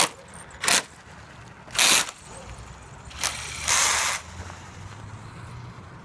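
Axial Yeti 1/10-scale RC truck's drivetrain grinding in short, harsh bursts: four of them, the longest, about half a second, a little past the middle, over a faint low hum.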